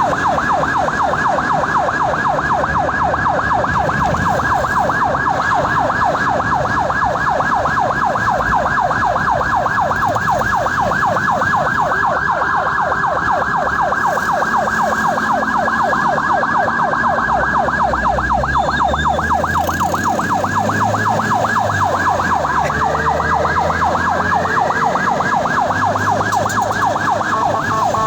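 Ambulance siren on a fast yelp, its pitch sweeping up and down several times a second without a break, over the low running noise of the vehicle's engine and road.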